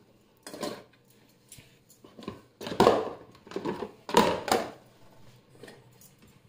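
Nested plastic mixing bowls and stainless steel bowls knocking and clattering together as they are lifted and handled in a kitchen drawer. It is a handful of separate knocks, the loudest about three seconds in.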